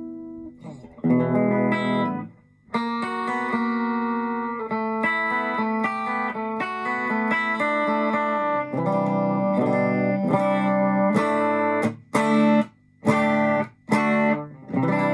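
Electric guitar (Fender Japan ST62 Stratocaster) played through a Yamaha CO-01 compressor pedal into a Marshall Class5 amp: a run of single notes and chords, then short choppy chords with brief gaps between them about twelve to fourteen seconds in, and a held chord near the end.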